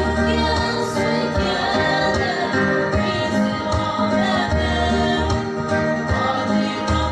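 A mixed group of young women and men singing a song together, holding long notes, over a low instrumental backing.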